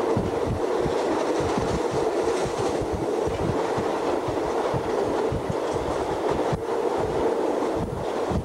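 A State Railway of Thailand passenger train running at speed, heard from on board: a steady rumble and rushing noise with an uneven run of low knocks from the wheels over the track.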